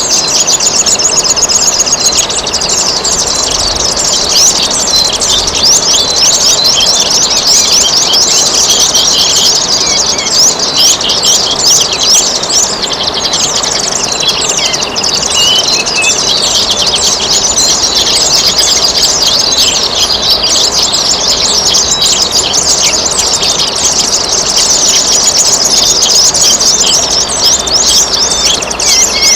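Many small songbirds chirping and singing in quick, overlapping notes without a break, over the steady sound of trickling water.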